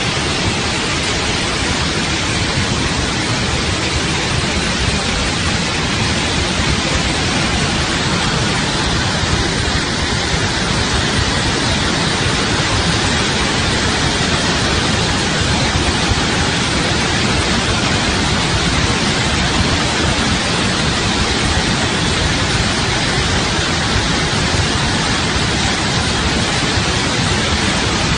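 A huge torrent of muddy floodwater pouring down, heard as a loud, steady rush of noise.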